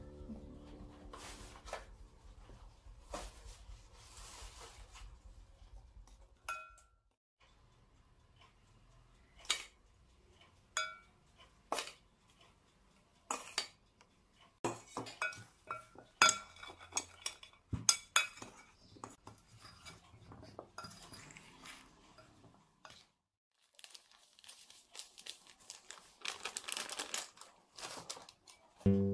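A metal spoon clinking and scraping against a glass bowl as cookies are tossed in powdered sugar, in irregular taps and clinks that grow busier about halfway through.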